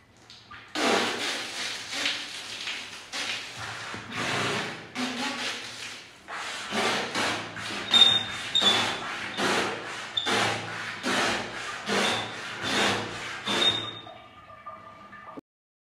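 Holi pichkari (plunger water gun) squirting a jet of water that hisses and splashes against tiled shower walls, in a quick series of surges about two a second, dying away near the end.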